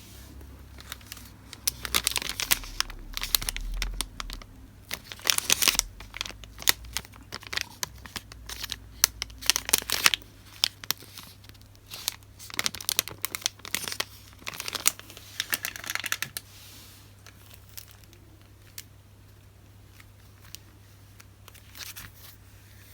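Paper goods and their packaging being unwrapped and handled: crinkling and rustling in busy bursts with small taps, tailing off to a few light touches about two-thirds of the way through.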